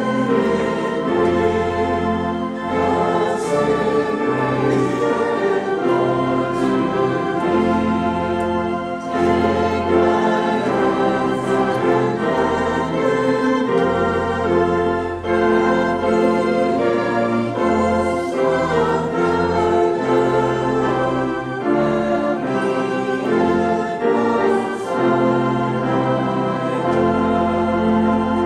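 Organ playing a slow hymn in sustained chords over a moving bass, with a congregation singing along.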